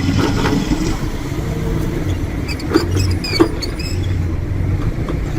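Diesel engine of heavy earthmoving machinery running steadily, with two sharp knocks about half a second apart near the middle.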